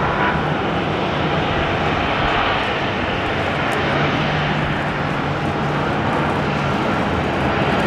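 Jet airliner engines running: a steady, dense rush of noise with a low hum underneath.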